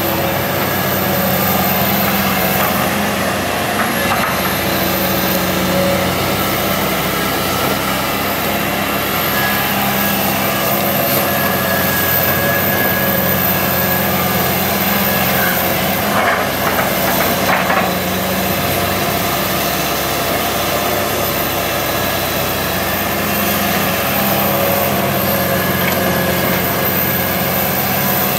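Komatsu PC160 hydraulic excavator's diesel engine running steadily, with a few faint knocks about two-thirds of the way through.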